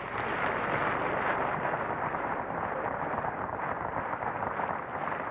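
Circus audience applauding in a steady, dense patter.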